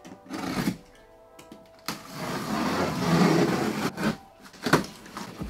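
TV packaging being handled during unboxing: a long rough scraping, rubbing sound about two seconds in, with a short rustle before it and a few sharp knocks after it.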